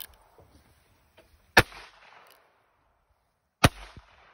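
Two shots from a 1965 Herbert Schmidt EIG Model E15 .22 Long Rifle revolver, about two seconds apart, each a sharp crack with a short echo.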